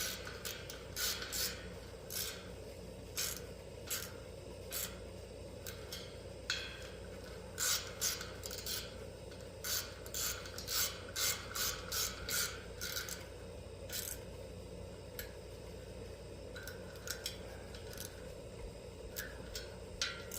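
Ratchet wrench clicking in short irregular runs while fasteners on a replacement AC condenser fan motor assembly are worked, with some metal rubbing and scraping.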